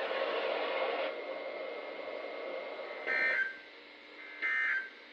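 NOAA Weather Radio end-of-message SAME data bursts: two short, harsh two-tone digital bursts about 1.3 s apart, after a few seconds of steady radio hiss.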